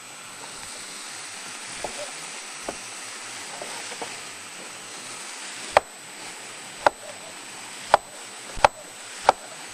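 Onion, celery and jalapeño sizzling steadily as they fry in a pan. From about six seconds in, a knife chops tomato on a cutting board: five sharp strokes, about a second apart.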